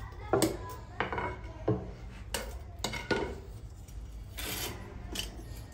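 Metal snake tongs clinking and knocking against a wooden enclosure door and its latch, a string of sharp clinks about two-thirds of a second apart, with a brief rasping noise near the end.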